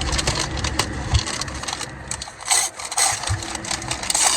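Takeout food packaging being handled: rustling and crinkling with a run of sharp clicks and knocks, loudest in two bursts in the second half.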